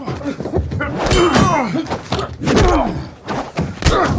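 Movie fight sound effects: several heavy thuds and thwacks of blows and bodies hitting the train's fittings, the sharpest near the end, mixed with the fighters' grunts and strained shouts.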